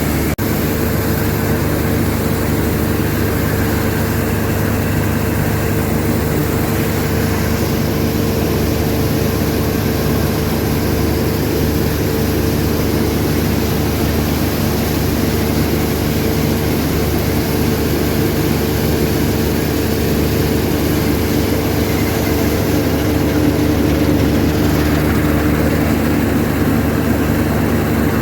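Combine harvester engine running steadily while harvesting, with a constant hum and even machine noise.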